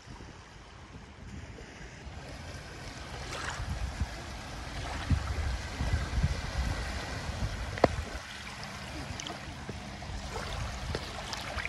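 Small sea waves washing and lapping in the shallows right at the microphone, with wind rumbling on the microphone. There is one sharp click about eight seconds in.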